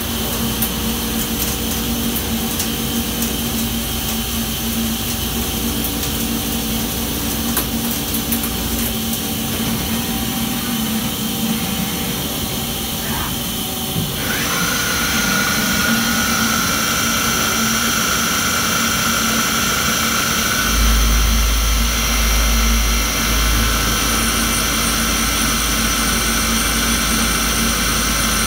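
Mazak Quick Turn Nexus 350-IIMY CNC lathe machining a large metal shaft: steady spindle and cutting noise with coolant spray and a constant hum. About halfway through a higher steady whine joins, and a deep rumble swells for a few seconds near the end.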